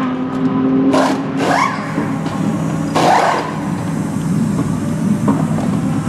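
Pneumatic wheel guns firing in short bursts during a race-car wheel change, several quick whirring bursts that rise in pitch, about one, one and a half and three seconds in. A steady engine hum runs underneath.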